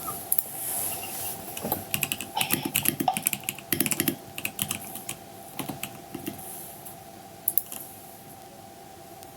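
Computer keyboard being typed on: irregular bursts of keystroke clicks, thinning out after about six seconds, with a brief pair of clicks later on, over a faint steady hum.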